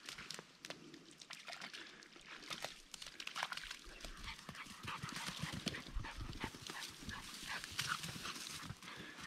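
A puppy running through the shallow edge of a farm dam, its paws splashing and slapping in quick, uneven steps.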